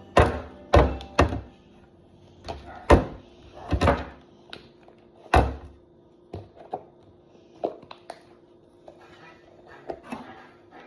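Slime and its plastic tub being handled: a series of loud, dull thumps in the first six seconds, then lighter clicks and taps.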